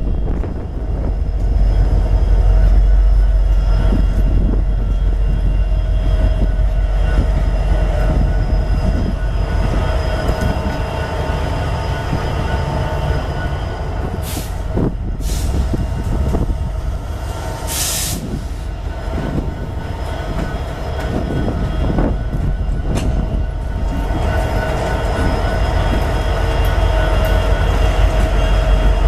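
BNSF coal train rolling past: a steady low rumble of wheels on rail with a thin, steady squeal, and a few brief high-pitched bursts about halfway through.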